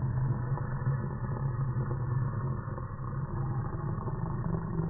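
A small long-haired dog growling, slowed down in slow motion into a deep, steady rumble.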